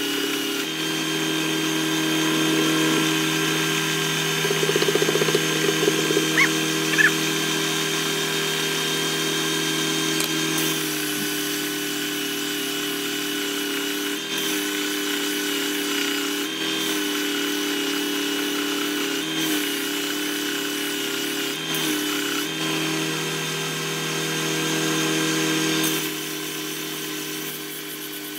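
Bench-top combination belt and disc sander running, with a wooden box held against the belt to sand it. The motor hum stays steady but shifts slightly in pitch several times. There are two brief squeaks about six to seven seconds in, and the sound drops in level near the end.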